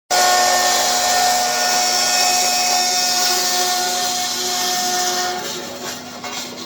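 Flying saw of a roll forming machine cutting through a steel P-beam profile: a loud, steady grinding with ringing tones that stops about five seconds in. After that a steady hum and light metallic clatter remain.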